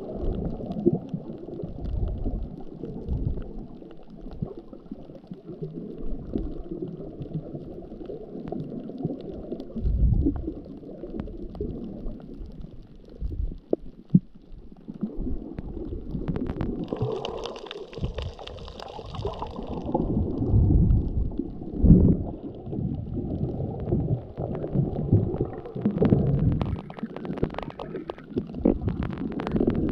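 Muffled underwater water noise around a submerged camera: low rumbling and gurgling sloshing that surges unevenly as the snorkeler moves. Scattered faint clicks run through it, and a brief higher hiss comes about seventeen seconds in.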